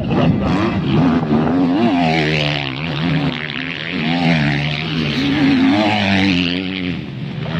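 250cc motocross dirt bike engine revving hard as the rider accelerates down the track, its pitch rising and falling several times, and passing close by near the end.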